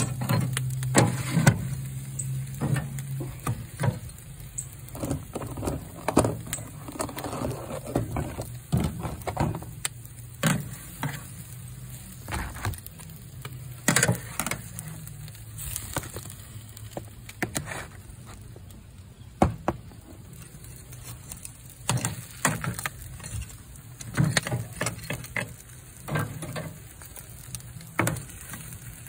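Metal tongs clacking and scraping against a smoker's wire grate and a metal pan as smoked oxtails are picked up and moved, in irregular sharp clicks and knocks. A low hum runs under them for the first few seconds.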